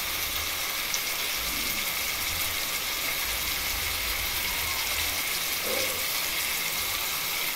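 Chopped onion, tomato and capsicum sizzling steadily in hot oil in a frying pan, a constant high hiss.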